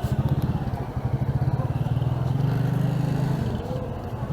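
Small motorcycle engine running with a fast, even exhaust beat that smooths out and fades a little toward the end.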